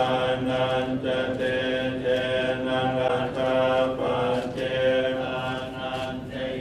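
Buddhist monks chanting together in a near-monotone drone, long phrases broken by brief pauses for breath.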